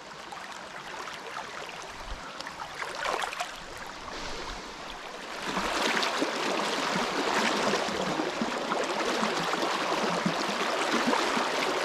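Shallow river running over a stony bed: a steady rush of water, quieter at first, then louder and fuller from about five and a half seconds in.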